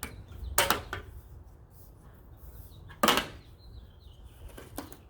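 A few sharp plastic snaps and clicks as the 2013 Ford Edge's roof gutter moulding is pried loose with a plastic trim tool, its clips popping free. The loudest snap comes about three seconds in.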